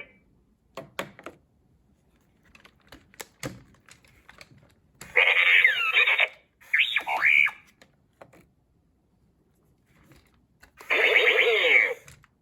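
Electronic sound effects from a toy robot's speaker: three short bursts of swooping, gliding electronic tones, about five, seven and eleven seconds in. Small scattered clicks come in the first few seconds.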